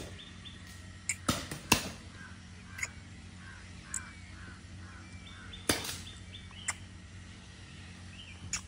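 Gas-powered paintball markers firing across the field: about ten sharp pops, single or in quick pairs, at irregular intervals, the loudest near two seconds in and just before six seconds. A bird calls in a short repeated series in the background.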